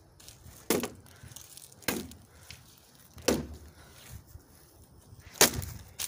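Four sharp cracking hits, one to two seconds apart, the last the loudest: a cheap box fan's plastic parts being smashed.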